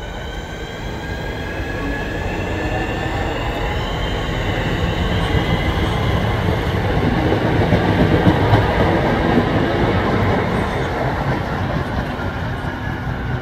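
Southeastern Networker electric multiple unit pulling away from the platform: its traction motors whine, rising in pitch over the first few seconds, under a growing rumble of wheels on rail that is loudest about eight seconds in and then eases.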